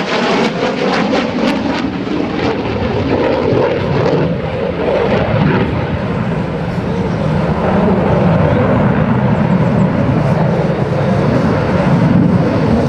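F-16 Fighting Falcon's single jet engine, loud as the fighter maneuvers overhead, crackling sharply in the first second or two, then a steady rumble that swells slightly about two-thirds of the way through.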